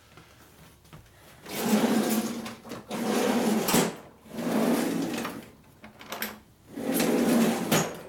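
Four scraping strokes, each about a second long, with short pauses between.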